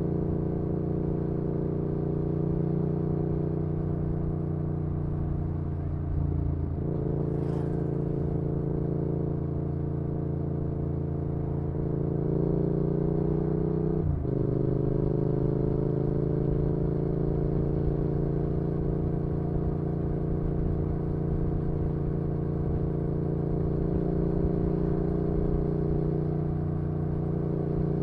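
Yamaha XSR700's parallel-twin engine through an IXRACE MKII aftermarket exhaust, running at a steady cruise. The engine note sags briefly about six seconds in, drops sharply about halfway through, then slowly climbs again.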